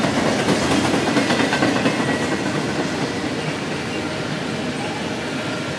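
Double-stack intermodal freight train's loaded container well cars rolling past steadily, wheels rumbling on the rails with a faint thin high squeal. It grows slightly quieter in the second half.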